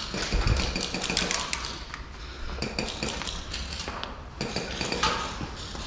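Scattered light clicks and metallic clinks, irregular and unevenly spaced, with a low thump about half a second in and a steady low rumble underneath.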